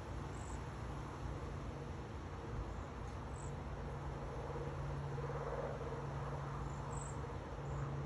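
Cedar waxwing giving several short, very high, thin calls, spaced a few seconds apart, over a steady low background hum.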